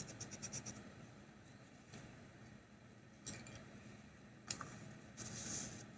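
Pencil shading on paper: quick back-and-forth scribbling strokes, about eight a second, that stop about a second in, then a few faint scratches and a short rub near the end.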